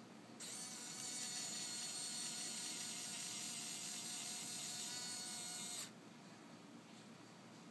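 Small geared electric motor of an electric landing-gear retract unit running with a steady high whine. It starts about half a second in and stops abruptly near six seconds.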